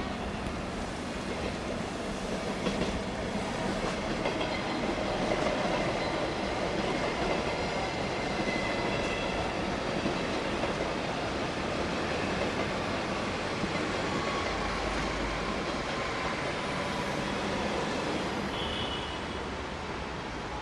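Passenger trains rolling through a station's track field: a steady noise of wheels on rails, with faint high wheel squeals coming and going and a faint high whine rising and falling near the end.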